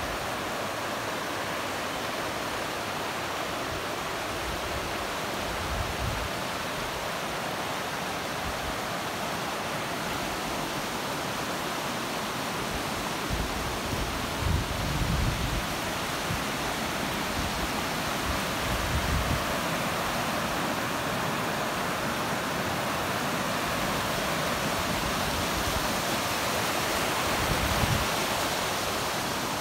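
Steady rush of a mountain river running white over rocks and rapids. A few brief low rumbles come through, the strongest about halfway and near the end.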